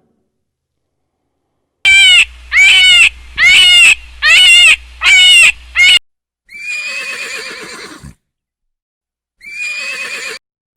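A farm animal calling: six short, loud calls in quick succession, then two longer calls with a pause between them.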